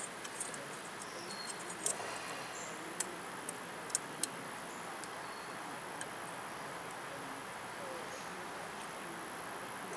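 Light metallic clicks as stamped-steel brake pad hardware clips are pressed into place on a front disc brake caliper bracket, several in the first few seconds and one more later, over a steady background hiss.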